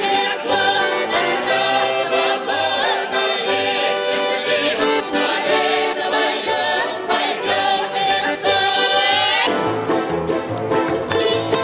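Russian folk ensemble singing in chorus to accordion, over a steady jingling percussion beat. About nine and a half seconds in the singing stops and the instrumental dance tune carries on.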